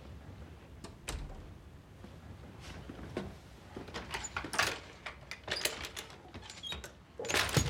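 Wooden toy rocking horse being lifted off the floor and set upright: a run of light wooden knocks and creaks, with a louder clatter near the end.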